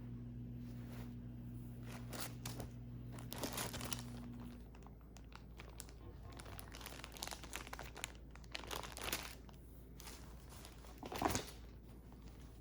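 Plastic packaging and clothing crinkling and rustling in irregular bursts as the items are handled, with a louder crackle near the end. A low steady hum stops about a third of the way in.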